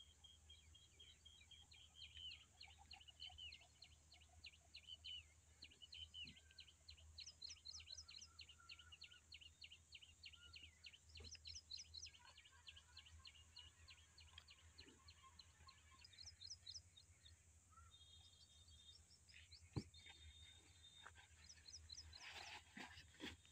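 Faint birdsong: small birds chirping in quick repeated trills throughout, with one sharp knock near the end.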